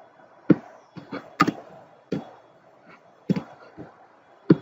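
Computer keyboard keys and a mouse button clicking: about eight sharp clicks at uneven intervals as a number is typed into a field and confirmed.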